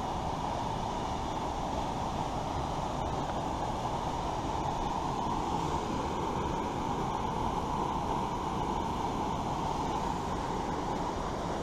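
Small waterfall pouring into a pool below: a steady, unbroken rush of falling water.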